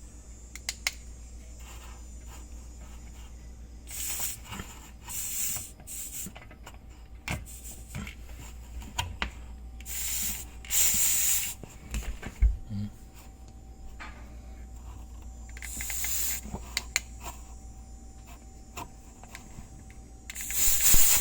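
Pressurized fitting on a reverse osmosis system hissing in short spurts as a pressure gauge is worked on it, with clicks and knocks from handling the parts. A low steady hum runs underneath.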